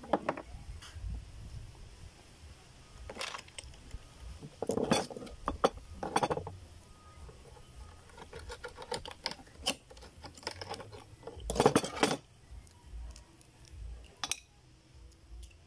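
Oyster shells clinking and scraping against each other and against a kitchen knife as raw oysters are pried open and handled. Irregular sharp clicks and short scrapes, the loudest clusters about five and twelve seconds in.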